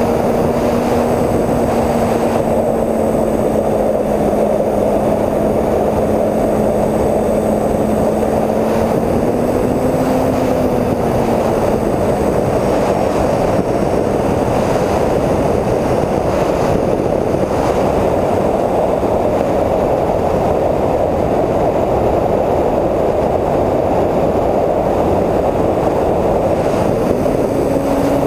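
Onboard recording of a TwinStar II electric RC plane in flight: its twin electric motors and propellers hum steadily under a rush of wind over the airframe. The motor pitch rises briefly about ten seconds in and again near the end, as the throttle changes.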